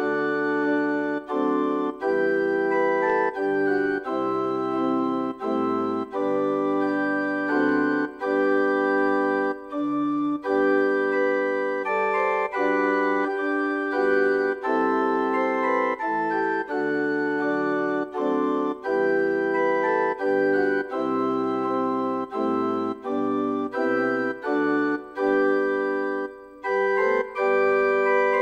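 Organ playing a hymn in sustained chords, the notes held steady and changing chord by chord, with short breaks between phrases.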